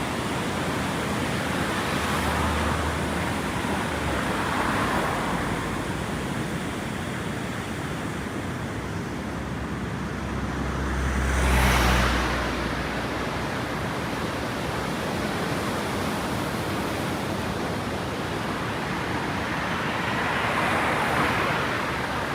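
Steady rush of a waterfall, with vehicles passing on the road beside it; the loudest pass, with a deep rumble, comes about halfway through.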